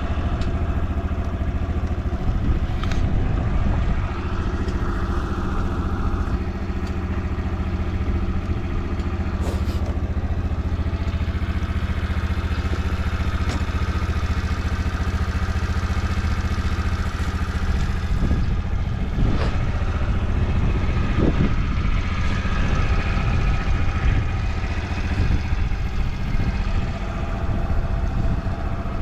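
Honda Motra's small single-cylinder four-stroke engine idling steadily, running quietly with no abnormal noises.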